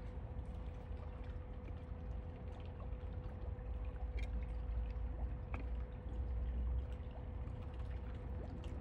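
Low outdoor background rumble with a faint steady hum, and a few light clicks as a plastic test vial and dropper bottle are handled.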